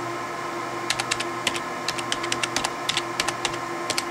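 Computer keyboard keys clicking as a password is typed at a login prompt: a quick, irregular run of keystrokes starting about a second in, over a steady hum.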